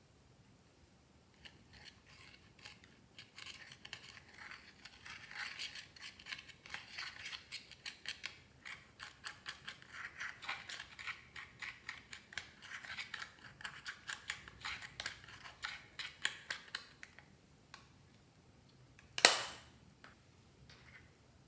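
Clear slime being worked by hand, giving a fast, uneven run of sticky clicks and crackles for about fifteen seconds, then one loud sharp pop a couple of seconds later.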